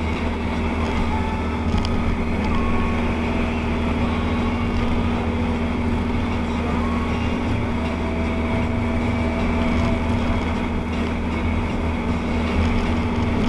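Steady engine drone and tyre noise heard inside a vehicle's cabin driving at motorway speed on a wet, slushy road, with a constant low hum throughout.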